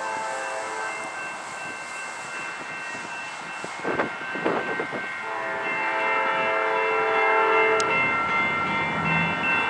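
Nathan K5LA five-chime air horn on a Norfolk Southern freight locomotive, sounding as the train approaches a grade crossing: a blast that ends just under a second in, a long blast in the middle, and another starting near the end. A few sharp knocks about four seconds in.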